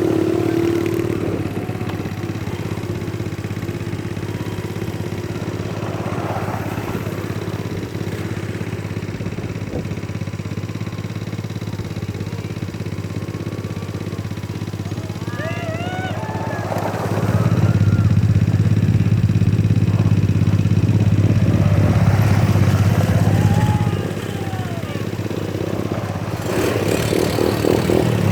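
ATV (quad bike) engine running steadily, growing louder for several seconds past the middle and again near the end.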